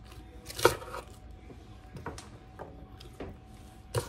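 Serrated knife slicing through raw cabbage and striking the cutting board: one sharp chop about half a second in, then several lighter, irregular cuts.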